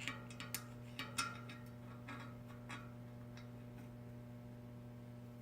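Light clicks and taps of a cartridge bearing and axle being handled and seated in a bicycle hub, a dozen or so sharp ones in the first few seconds, then fewer.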